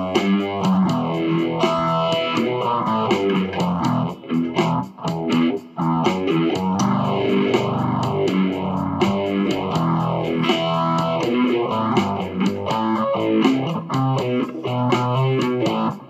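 Telecaster-style electric guitar played with a light overdrive, a run of single notes and chords picked continuously.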